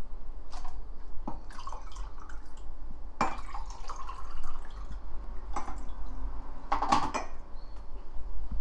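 Scattered light clinks and knocks of spoons, chopsticks and ceramic dishes on a table, with the loudest cluster about seven seconds in, over a low steady hum.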